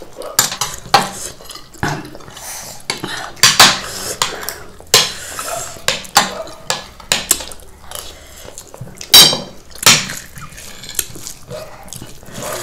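Metal spoons clinking and scraping against ceramic plates in an irregular run of short knocks and scrapes, as food is scooped up.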